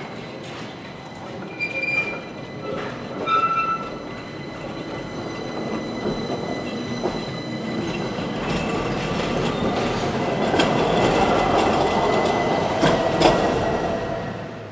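Modern articulated tram moving on street track and passing close by. In the first few seconds its wheels give short high squeals on the curved track. Then a rising rumble of wheels on rails builds, with sharp clacks as it crosses rail joints, and it is loudest about ten to thirteen seconds in.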